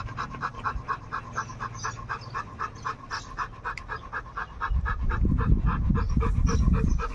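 Rottweiler panting fast and steadily behind the kennel mesh, about four to five pants a second. For the last couple of seconds a loud low rumble covers the panting.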